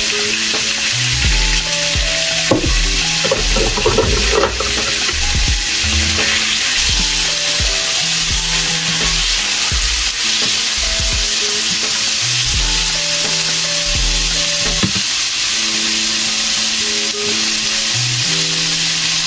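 Thin-sliced steak sizzling steadily as it fries in olive oil in a nonstick skillet, stirred with a utensil that clicks against the pan a few times in the first seconds. Background music with a bass line plays underneath.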